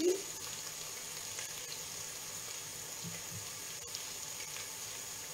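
Onion-and-garlic soffritto sizzling gently and steadily in a frying pan, with a few soft knocks as cherry tomatoes are handled on a wooden cutting board.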